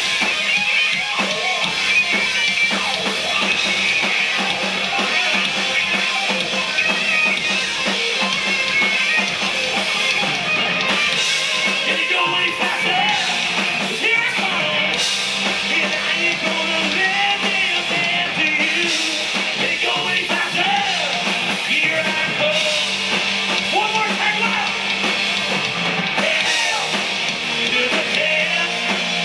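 Live rock band playing loud and steady: electric guitars and drums, with a man singing into the microphone.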